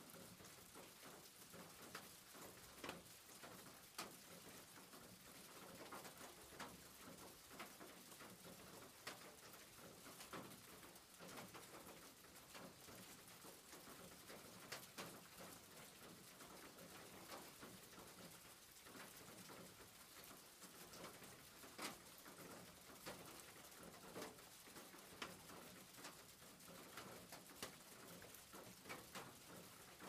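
Rain falling on a roof: a faint, steady patter with irregular sharper ticks of single drops striking.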